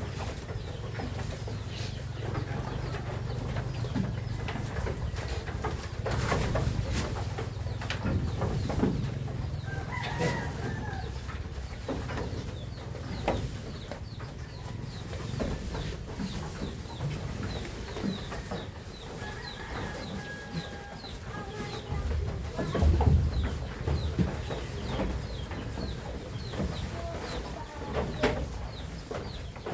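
Chickens clucking, with a rooster's held crowing call twice. Small birds chirp rapidly over scattered knocks and a low rumble.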